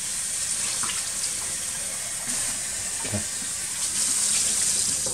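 Kitchen faucet running, with water splashing as a raw whole chicken is rinsed under it. The flow stops right at the end.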